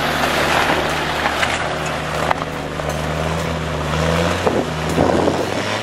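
Off-road 4x4's engine running steadily at low speed on a rough track, its hum rising a little about four seconds in, over tyre and wind noise with scattered short knocks.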